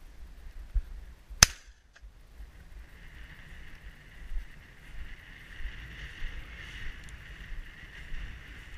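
A single shotgun shot about a second and a half in, fired at a red-legged partridge, followed by a faint, steady, high-pitched hiss.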